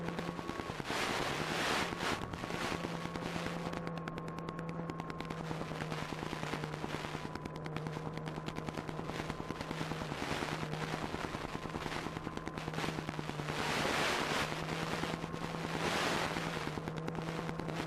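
Onboard sound of an Apprentice 15e RC airplane in flight: its electric motor and propeller running steadily with a rapid buzzing drone. Wind rush swells over it about a second in and twice near the end.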